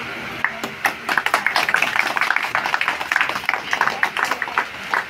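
A small group of people clapping, with irregular claps starting about half a second in and going on until near the end.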